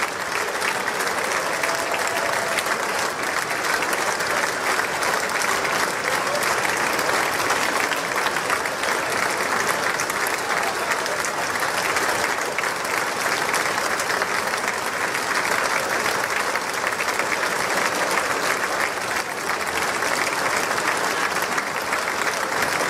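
A large audience applauding steadily: dense clapping from many hands with no break.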